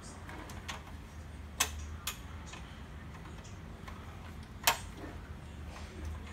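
A few sharp clicks and knocks of plastic and sheet-metal printer parts being handled while a wire harness is worked free, the loudest one about three-quarters of the way through, over a low steady hum.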